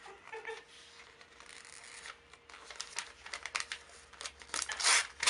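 Glossy magazine pages being handled and torn out: a run of short papery crackles and rips that comes thicker and louder in the last two seconds, the biggest rip near the end.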